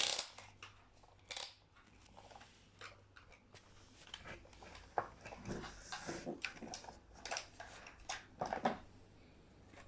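Scattered light clicks and knocks from a toy excavator being handled.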